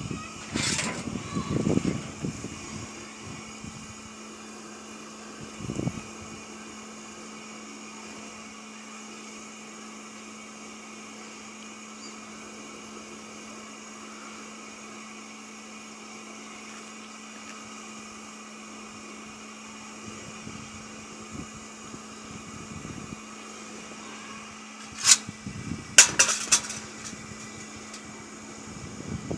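Small electric blower on a homemade wood gasifier running with a steady hum while gas burns at the flare nozzle. There is handling and knocking in the first couple of seconds and a dull thump a few seconds later. Near the end come a few sharp clicks.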